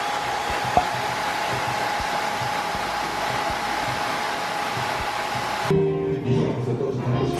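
Handheld hair dryer blowing hair, a steady rush of air with a thin whine. It cuts off suddenly near the end, and acoustic guitar music comes in.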